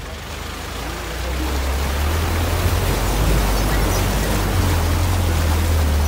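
4x4 jeep driving through shallow floodwater: water rushing and splashing against the front of the vehicle, building up over the first two seconds and then holding, over a steady low engine rumble.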